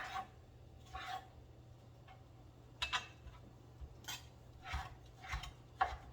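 Kitchen knife cutting tomatoes on a cutting board: separate knocks of the blade on the board, spaced about half a second to a second apart and getting closer together near the end.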